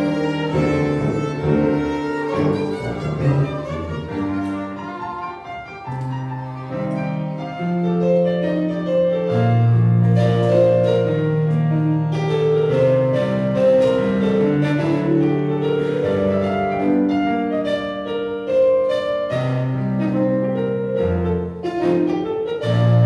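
Small live ensemble playing: several violins carry the melody over a low tuba bass line and electric keyboard chords.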